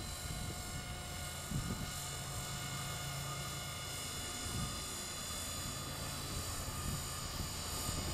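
450-size electric RC helicopter in flight, its motor and rotor giving a steady whine of several high held tones. Underneath is an uneven low rumble of wind on the microphone.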